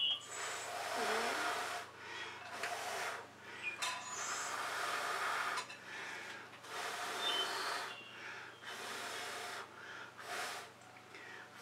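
A person blowing hard, in about six long breaths with short pauses, to push puddles of wet fluid acrylic paint outward across a canvas into blooms.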